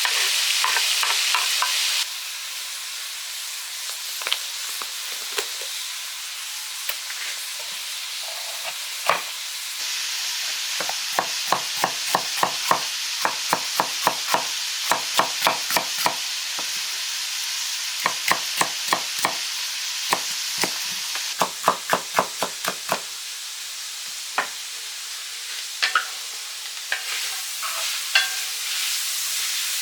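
A utensil stirring in a cooking vessel, clinking against its side in quick runs of about three strokes a second, over a steady hiss.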